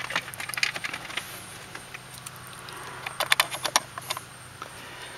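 Clusters of light clicks and rattles, at the start and again about three seconds in, from a hand working the clock spring's yellow airbag wire connectors behind a steering wheel.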